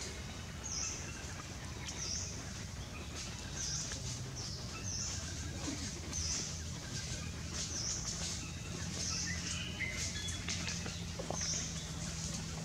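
A bird repeating a short, high call about once every second and a half, over a low steady hum.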